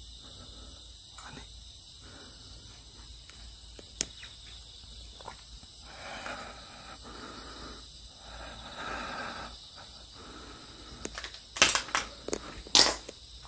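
Crickets chirping steadily in a high, evenly pulsing chorus. Near the end come a few loud, sharp clicks and knocks, the loudest sounds here.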